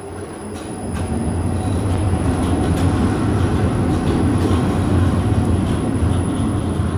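Škoda 15T low-floor tram running past at close range, a steady low rumble of its motors and wheels on the rails that swells about a second in and then stays loud.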